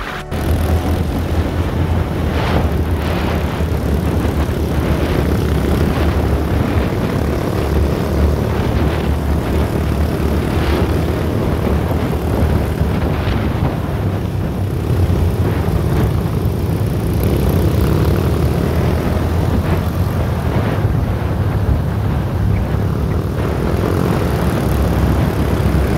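A large engine running steadily, a loud low rumble, with rushing wind-like noise over it.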